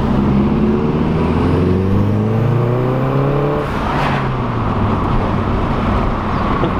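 Saab car engine accelerating, its pitch rising steadily for about three and a half seconds, then an upshift about four seconds in, after which the engine runs at a lower steady note in third gear.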